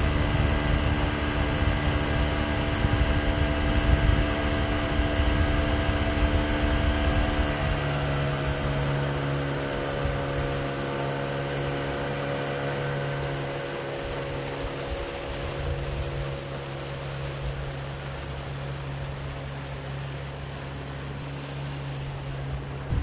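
Small boat's outboard motor running steadily under way, its pitch dropping slightly about a third of the way through and growing gradually quieter later on, over the rush of water from the wake.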